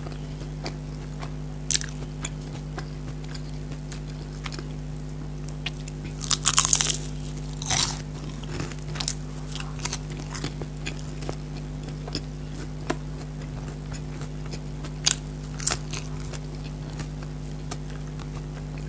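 Close-miked eating: scattered crunchy bites and chewing, the loudest stretch of crunching about six seconds in, with more sharp crunches near two, eight and fifteen seconds. A steady low hum runs underneath.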